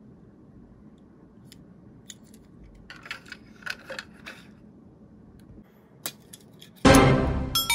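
Light clicks and scrapes of a die-cast minicar sliding into a plastic car-carrier shelf, a cluster of them about three to four seconds in. Near the end, a loud ringing musical sound effect comes in suddenly and drowns them out.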